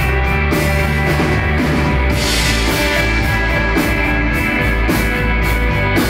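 Live instrumental rock jam from electric guitar, bass and drums played loud through amplifiers, with a heavy held bass line under the guitar and a steady pulse of cymbal strokes.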